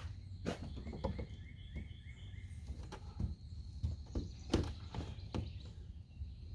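Irregular light knocks and clicks as pipe pieces and elbow fittings are handled and pushed together, over a steady low rumble, with a faint steady high insect drone.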